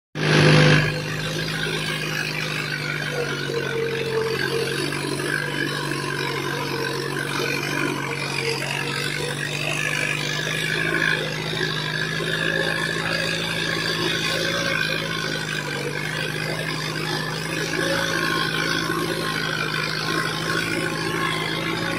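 Mahindra Arjun 555 DI tractor's diesel engine running steadily under load, with muddy water churning around the front wheels. A short loud burst sounds at the very start.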